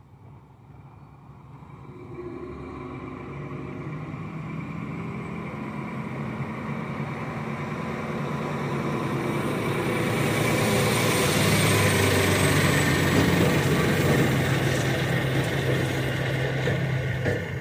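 Roll-off truck's diesel engine driving up, growing steadily louder over most of the span and easing off slightly near the end.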